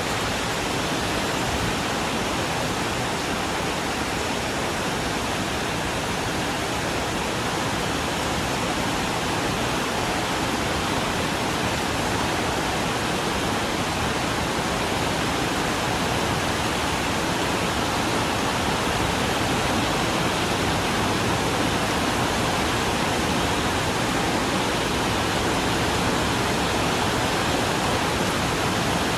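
Steady rain falling on a corrugated iron porch roof, an even hiss that holds level throughout.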